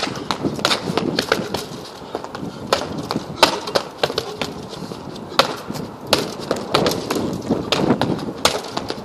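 Blows landing on a hanging heavy punching bag: sharp smacks in quick flurries of several a second, with short pauses between flurries.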